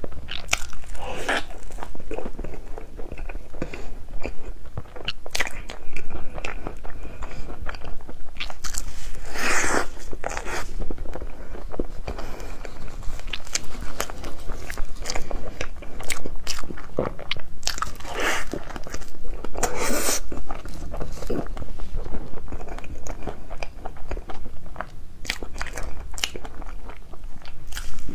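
Close-miked eating: repeated bites and chewing of colourful crepe cake, an irregular run of clicks and mouth noises.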